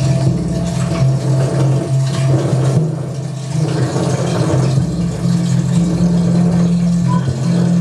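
Loud live electronic drone: low steady tones that shift back and forth between two pitches every second or so, under a grainy noise texture.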